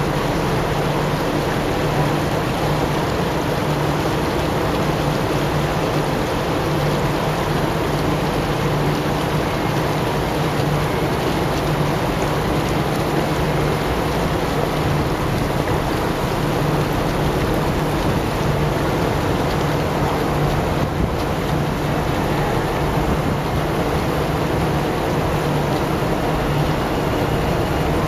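Small fountain jets splashing into stone ponds, a steady rain-like hiss of falling water, with a steady low hum under it.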